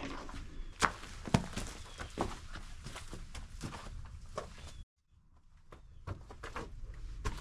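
Footsteps on loose, rocky ground: irregular scuffs and crunches. The sound drops out completely for a moment about five seconds in.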